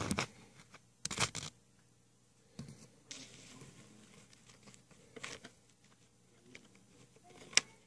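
Close handling noise: a few short crinkling, rustling bursts, as of plastic being brushed or crumpled, and a sharp click near the end.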